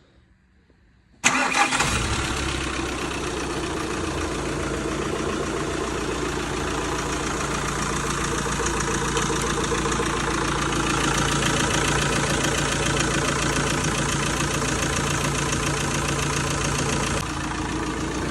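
A 2013 VW Crafter van's 2.0 TDI four-cylinder diesel engine catches about a second in and settles into a steady idle. It is the first start after a new clutch kit and flywheel were fitted.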